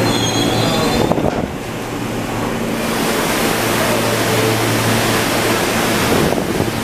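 Inside an R160 subway car: a steady rushing of the running train, wheels on rail, over a low hum. The rushing eases briefly, then grows louder again from about three seconds in.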